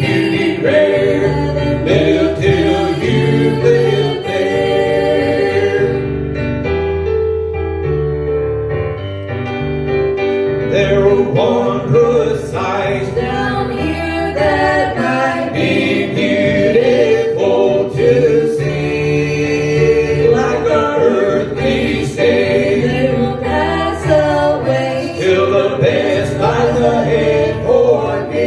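Gospel music: a vocal group singing together, without a break.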